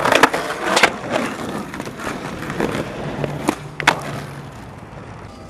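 Skateboard wheels rolling on pavement, fading toward the end. Several sharp clacks of the board striking the ground cut through it, near the start and again about three and a half to four seconds in.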